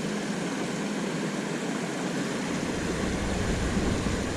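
Steady rush of water pouring over a small creek spillway. A low rumble comes in about two-thirds of the way through.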